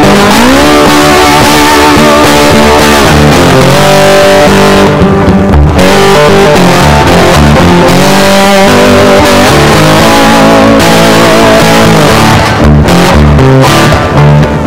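Background music led by electric guitar with bass, with bending guitar notes.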